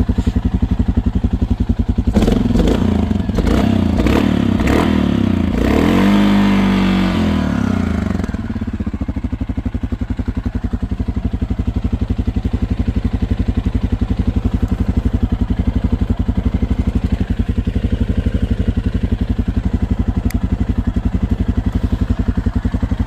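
2008 Suzuki KingQuad 750 AXi's single-cylinder four-stroke engine on its stock exhaust, idling. About two seconds in the throttle is blipped several times in quick succession, then it is revved once, higher and longer, before it drops back to a steady idle.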